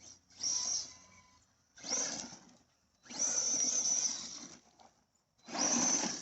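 Arrma Big Rock 6S RC monster truck, running on a 4S battery, whirring in four short bursts of throttle; the third burst is the longest, about a second and a half.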